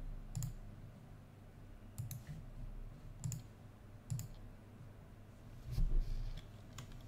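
Single computer-mouse clicks, about half a dozen spaced roughly a second apart, with a duller thump about six seconds in.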